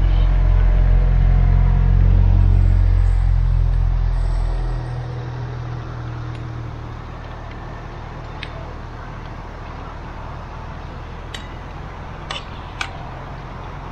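Gas camping stove burner running on a high flame with a loud, steady low rumble, turned down about five seconds in to a quieter steady run. A few light clicks follow near the end.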